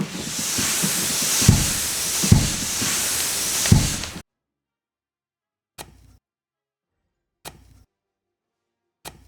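A steady hissing rush with three low thuds in it, cutting off suddenly about four seconds in, then three single sharp clicks about a second and a half apart.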